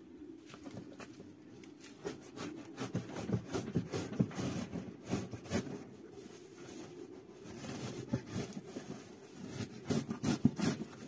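Cardboard packaging being cut open with a blunt knife and handled: irregular scraping, rubbing and small knocks, busiest about two seconds in and again near the end.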